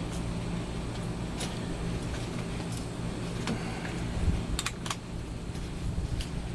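Steady low mechanical hum, with a few brief light clicks and clinks scattered through it.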